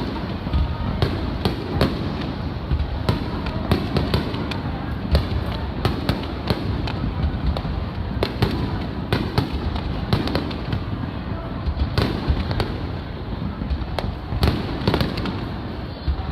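Aerial firework shells bursting in quick, irregular succession: sharp bangs, several a second, over a continuous low rumble of overlapping booms.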